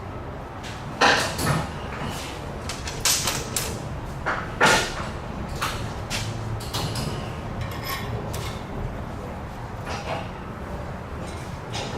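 Scattered knocks and clatter of hand work on the truck's exhaust repair, loudest about a second in and near five seconds, over a steady low hum.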